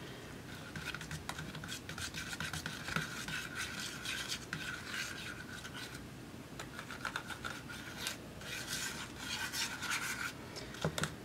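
Metal palette knife stirring and scraping paint around a small plastic cup, a fast run of rubbing scrapes that stops briefly a little past halfway, then resumes.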